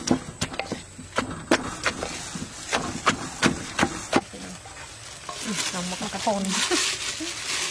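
Wooden pestle pounding shredded green papaya salad in a clay mortar: about a dozen sharp, wet knocks over the first four seconds. Then the salad is tossed by hand in plastic gloves, a soft rustling.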